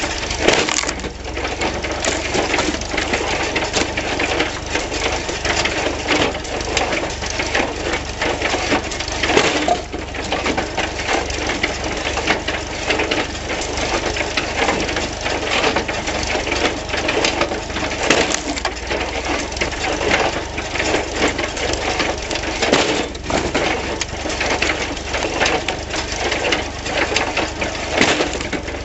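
John Deere 14T hay baler rebuilt as a wood splitter, running continuously with a dense mechanical clatter as it splits and crushes firewood, over a steady low hum. Sharp cracks of splitting wood stand out several times.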